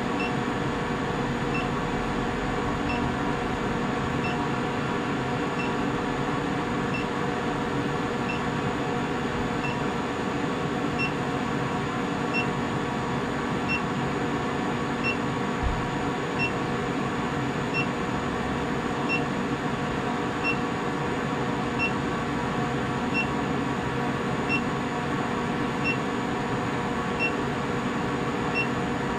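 25 kW induction heater running on a heating cycle, a steady hum with a short high beep about every second and a half, while it heats a crucible of steel rivets from cold to riveting temperature.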